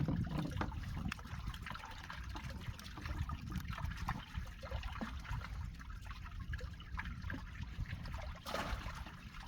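Water trickling and splashing, with scattered small knocks over a low steady rumble and a brief louder splash near the end.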